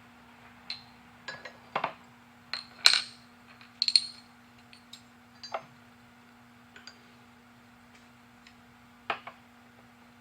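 Irregular light metallic clinks and taps as forged pistons and connecting rods are handled and set down on a workbench, a dozen or so sharp strikes with a short ring, the loudest about three and four seconds in. A faint steady hum runs underneath.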